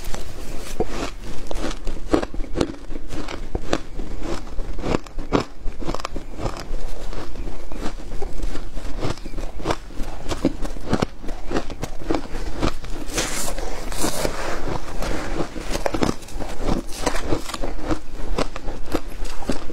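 Shaved ice crunching close up as it is chewed and scooped with a metal spoon: a dense, continuous run of crisp crackles, with a brighter, hissier stretch about two-thirds in.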